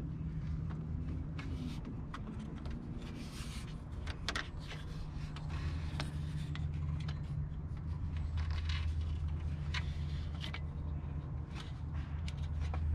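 A rubber serpentine belt being routed by hand over engine pulleys: scattered light scrapes and clicks, over a steady low hum.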